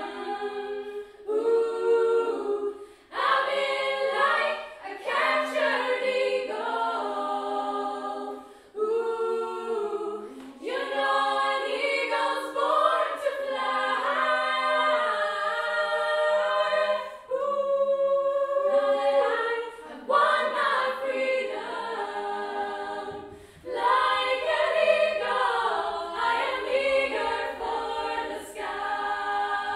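A women's choir of eight voices singing a cappella in harmony, in phrases with short pauses between them.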